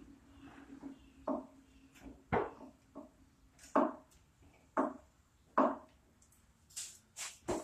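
A series of sharp knocks, roughly one a second and coming faster near the end, from a hand tool being worked on an International Harvester Model M 1½ hp engine during teardown.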